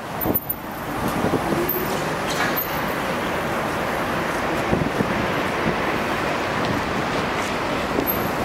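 Steady street traffic noise from passing cars, an even wash of engine and tyre sound.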